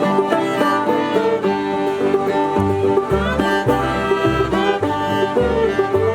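String band jam of banjo and fiddle with guitar playing an instrumental break between sung verses of an old-time song, with low bass notes marking the beat from about two and a half seconds in.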